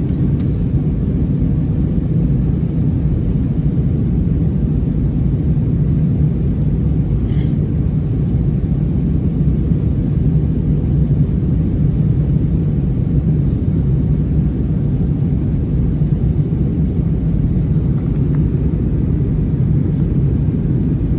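Steady low rumble inside the cabin of an Airbus A321neo during its descent to land, the engines and airflow heard from a seat. A brief faint click comes about seven seconds in.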